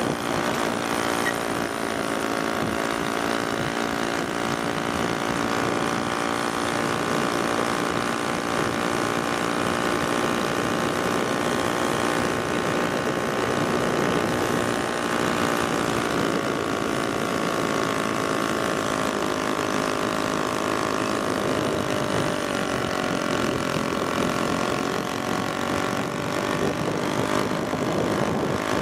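VéloSoleX mopeds' small two-stroke engines running steadily at cruising speed, a constant buzzing drone whose pitch sags slightly about two-thirds of the way through.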